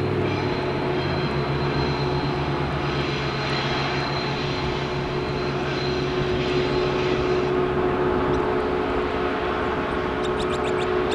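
TasRail TR-class diesel locomotives hauling a freight train in the distance: a steady engine drone with a held hum. About ten seconds in, a quick run of sharp clicks.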